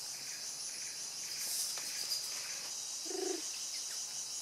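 Steady high-pitched chorus of forest insects, with a short low call about three seconds in.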